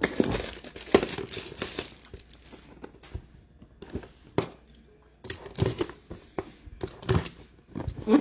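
A trading card pack's wrapper crinkling and tearing as it is opened, most densely over the first two seconds, followed by scattered sharp clicks and short rustles of cards and packaging being handled.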